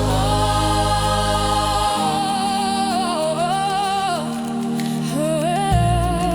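African gospel praise music: a voice sings a wordless, wavering melody over sustained chords. The deep bass drops out about two seconds in and returns near the end.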